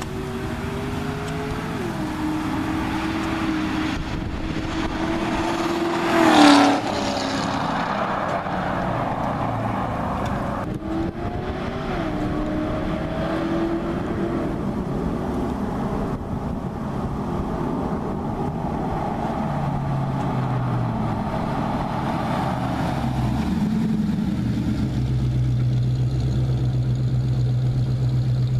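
Ford Crown Victoria's 4.6-litre V8 heard through its exhaust, rising in pitch and dropping back at shifts as the car accelerates along the street, with one loud sharp burst about six seconds in. It settles into a steady low drone over the last few seconds.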